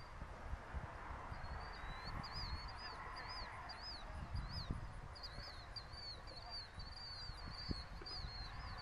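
A bird calling in a quick run of high chirps, each rising and falling, repeated several times a second from about a second and a half in, over a low, uneven rumble.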